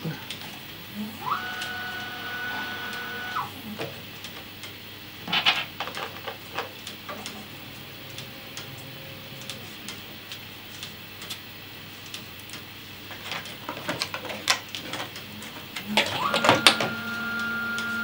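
A small electric motor whirs twice, about a second in and again near the end, each time rising in pitch, holding for a couple of seconds and winding down, among light clicks and taps of small hardware being handled.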